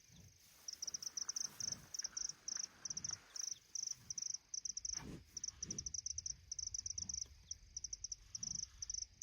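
Crickets chirping: short, high-pitched pulsed trills in quick groups, starting just under a second in and repeating throughout. A few soft low thuds sound about halfway through.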